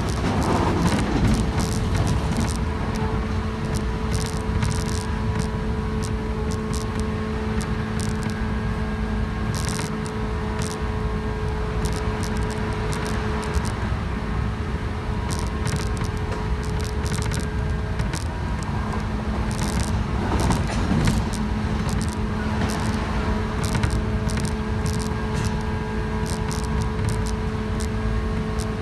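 Running sound of a JR West 117 series electric train at speed, heard from inside the car: a steady rumble of wheels on rail with scattered clicks. A steady low hum fades out for a few seconds in the middle and then returns.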